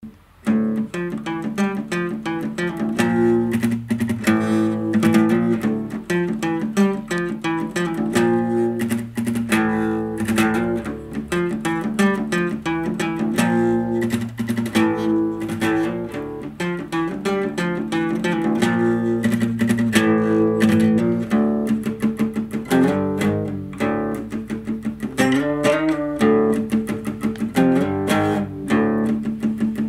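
Solo nylon-string classical guitar played fingerstyle: fast plucked notes over a recurring low note, starting about half a second in.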